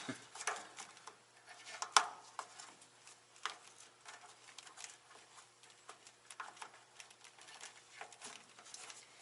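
Light clicks and rustling of a truck's plastic wiring harness and connectors being handled, with one sharp click about two seconds in, over a faint steady hum.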